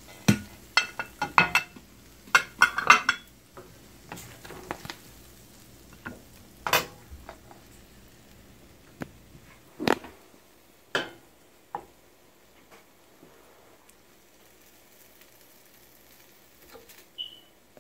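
A serving spoon scraping and knocking against a nonstick frying pan as sauce-coated chicken wings are scooped out. A quick run of knocks comes in the first few seconds, then a few separate clinks further apart.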